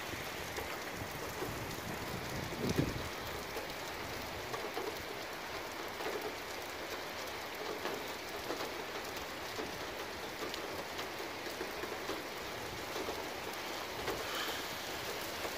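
Heavy rain falling steadily, with many small scattered drop hits close by and a brief low thump about three seconds in.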